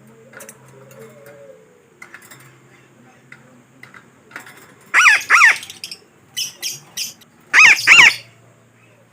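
Parakeet (betet) giving harsh, loud calls: a pair about five seconds in, three short sharp calls just after, and the loudest pair near the end, used as a lure call.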